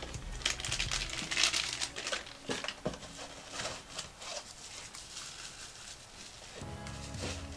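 Plastic packaging bags crinkling and rustling while security cameras are unwrapped by hand, with small clicks as the plastic parts are handled; busiest in the first two seconds, then lighter.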